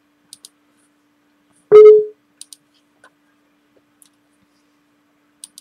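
Computer mouse clicking in quick pairs, three times, with a few fainter single clicks, while operating the Mach3 CNC control software. About two seconds in comes a short loud tone that starts sharply and fades within half a second.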